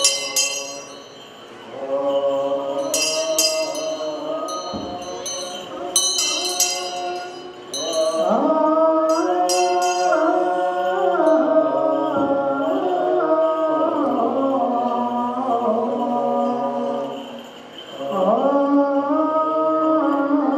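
Men's voices chanting together in Ethiopian Orthodox liturgical chant, slow held notes that grow louder about eight seconds in and break off briefly near the end. During the first several seconds the small bells on a swinging censer jingle over the chant.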